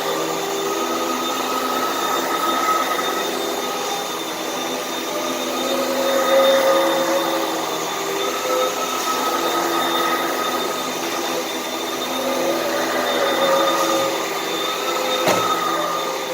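Vacuum cleaner running steadily as it sucks up dirt, its motor whine wavering slightly in pitch, with a single sharp click near the end.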